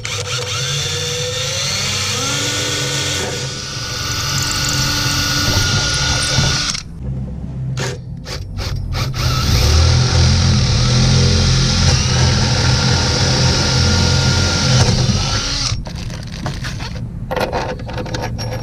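DeWalt cordless drill boring through a boat's swim platform. The motor spins up with a rising whine and runs steadily, stops about seven seconds in, then after a few short blips drills again for about six seconds: a small pilot hole first, then a larger bit opening it up.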